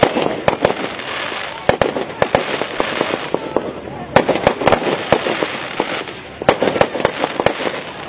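Aerial firework shells bursting overhead, sharp bangs coming in quick clusters about every two seconds.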